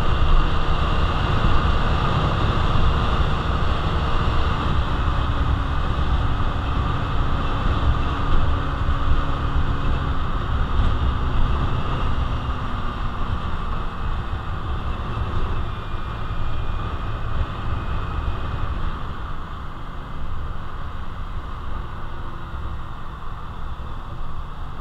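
Honda Navi's small single-cylinder engine running with wind and road noise while riding at highway speed, a steady rushing noise that eases off gradually in the second half.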